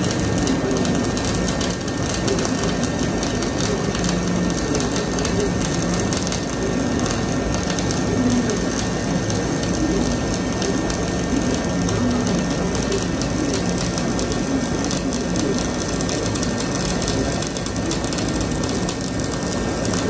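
Dual-shield (gas-shielded flux-cored) wire welding arc running a long bead without a break: a steady, dense crackle.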